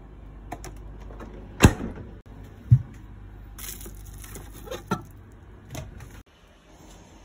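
A plastic-wrapped bowl being handled and lifted off a refrigerator shelf. There are two knocks of the bowl against the shelf, a brief crinkle of the plastic wrap, then a couple of lighter clicks.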